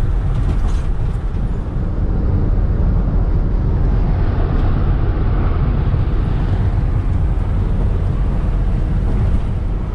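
Steady road and engine noise inside the cab of a 2005 Mercedes Sprinter van cruising at highway speed, a deep even drone with no separate knocks standing out.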